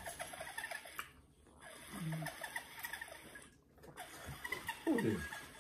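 Water being gulped from a drinking bottle, with small wet mouth and lip smacks. A brief hum comes about two seconds in, and a short vocal sound falling in pitch comes near the end.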